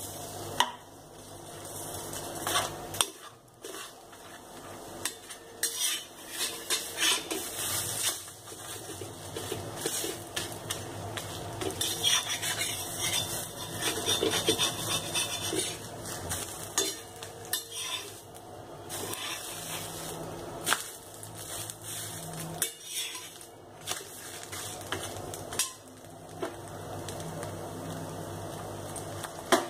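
A metal spatula scraping and clacking against a frying pan as a flatbread is pressed and turned, with light sizzling from the frying.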